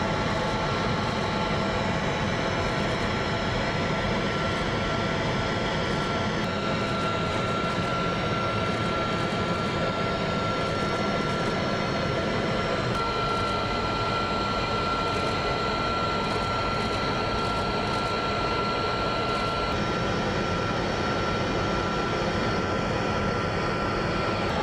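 Engine noise inside a coast guard patrol aircraft's cabin: a steady, even drone with a thin constant whine above it.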